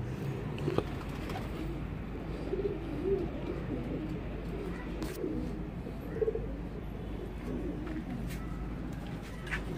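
Domestic FerozPuri pigeons cooing in low, wavering, repeated calls. A few sharp clicks fall in between.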